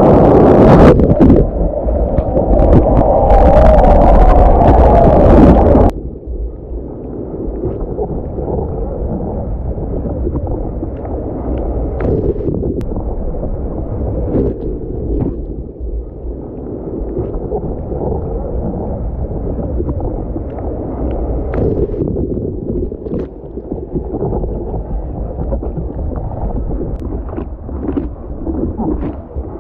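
Water rushing and wind noise on a surfboard-mounted camera as the board rides a wave. About six seconds in it drops suddenly to a duller, muffled water sound with scattered small knocks.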